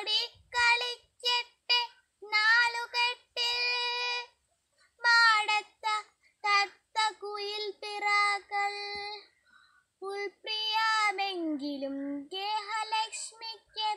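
A girl singing a Malayalam poem solo and unaccompanied, in short phrases with held notes and brief pauses. One phrase slides down in pitch about eleven seconds in.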